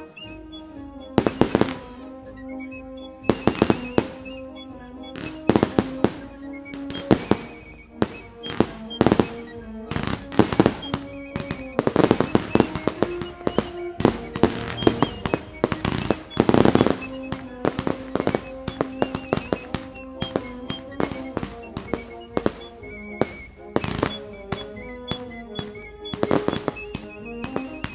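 Fireworks going off in a rapid, irregular series of sharp bangs, thickest in clusters around the middle and near the end, over music with long held notes.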